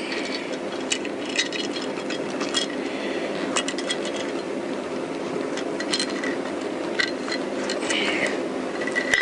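Light metallic clinks and rattles of a steel roller chain, the oil pump chain, being worked off the crankshaft sprocket of a Honda CBR1000F engine. Scattered small clicks come every second or so over a steady low hum.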